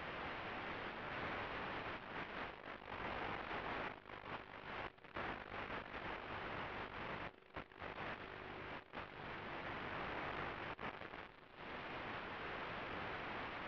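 Steady static hiss from the audio channel of an analog FPV video receiver's recording, with several brief dips and dropouts.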